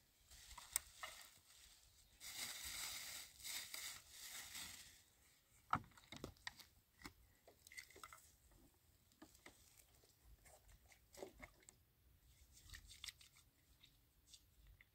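Faint handling noises close to the microphone: a few seconds of crinkling rustle, then scattered small clicks and taps, one sharper tap about six seconds in.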